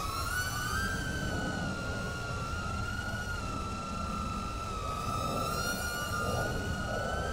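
Micro FPV cinewhoop drone in flight: its Geprc 1102 10000kv brushless motors and small propellers give a steady high-pitched whine. The pitch drifts slowly up and down.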